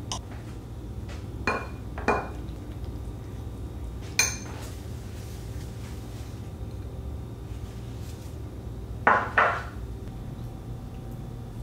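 Metal spoon and knife clinking against ceramic dishes: a few scattered clinks, with a louder pair near the end, over a steady low hum.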